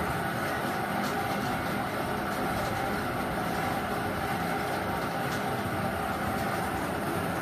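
Air-blown bingo ball machine running: the blower motor whirs steadily while plastic bingo balls clatter against the steel wire cage.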